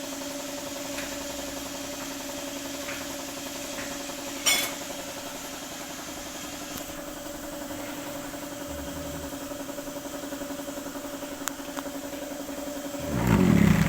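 Daihatsu Taft GT engine idling with a steady hum. There is a sharp click about four and a half seconds in and a louder low rumble just before the end.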